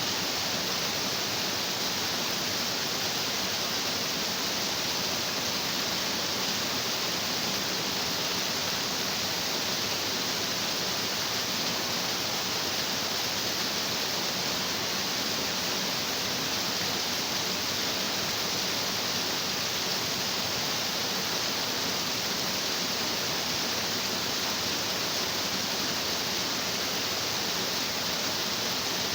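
A stream of water rushing over rocks: a steady, unbroken rush with no change in level.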